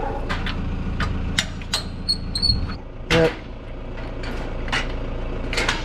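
Metal clicks and clanks of a caravan's drawbar hitch and safety chains being coupled to a four-wheel drive, over a steady low hum like an idling engine. A brief high squeak comes about two seconds in.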